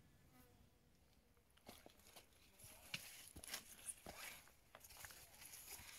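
Very quiet at first, then from about two seconds in, irregular footsteps on a forest trail with rustling as leaves and fern fronds brush past.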